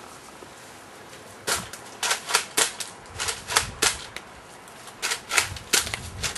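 Toy Nerf dart blasters being primed and fired: a rapid, irregular series of sharp plastic clicks and snaps, bunched in quick runs, some with a dull thud underneath.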